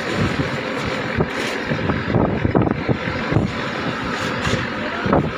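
A fishing boat's engine running steadily, with some wind on the microphone.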